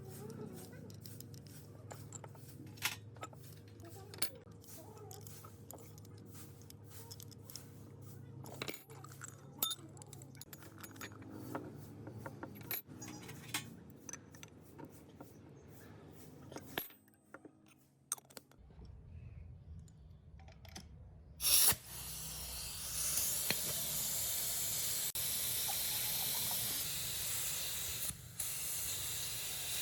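Small metal parts clicking and clinking as they are handled. About three quarters of the way through, a sharp click and then a steady hiss as the restored HaiJing S-710 spray gun sprays.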